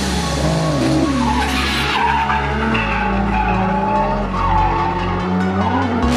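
Drift car sliding sideways: tyres screeching in a loud hiss while the engine revs rise and fall, over background music with a heavy bass line.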